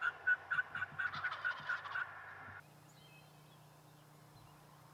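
A run of turkey yelps, short evenly spaced notes at about four a second, that stops abruptly a little past halfway.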